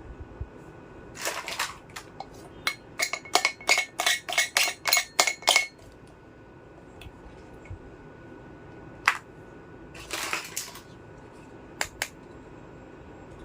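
Miniature toy kitchen dishes and utensils clinking and tapping together as they are handled: a quick run of about a dozen light clicks with a slight ring, then a few scattered taps and brief rustles.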